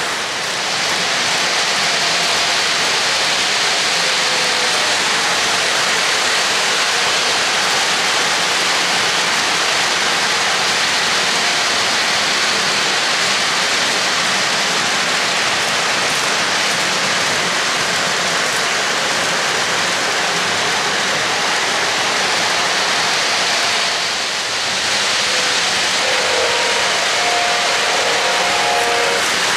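O-gauge model trains rolling on three-rail track: a steady rushing noise of metal wheels running on the rails. It dips briefly about half a second in and again near the end, where a few faint short high tones come through.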